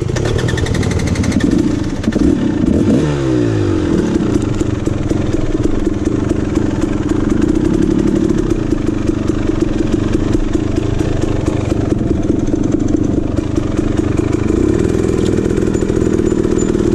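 KTM 300 XC dirt bike's two-stroke single-cylinder engine running on the throttle over rough trail, its pitch dropping sharply about three seconds in as the throttle comes off, then holding fairly steady. Frequent clicks and rattles sound over the engine.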